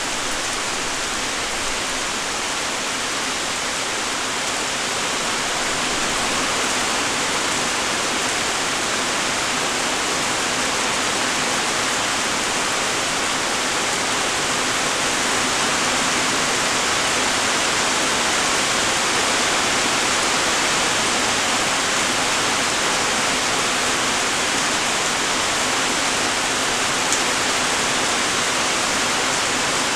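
Steady light rain: an even hiss of many small raindrops, with one faint tick near the end.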